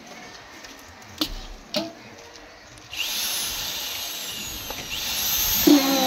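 Two knocks, then about halfway through an electric concrete needle vibrator's motor switches on and runs up into a steady whining hum, growing louder toward the end.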